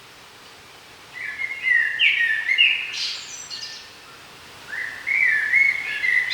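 A songbird singing two phrases of quick, changing notes, each about two and a half seconds long. The first starts about a second in; the second begins near the end, over a faint steady outdoor background.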